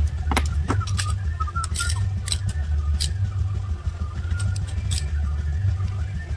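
Sharp metallic clinks and taps of a spark plug socket on an extension, knocking against the spark plug wells of the engine's cylinder head as it goes in and comes out, over a steady low rumble.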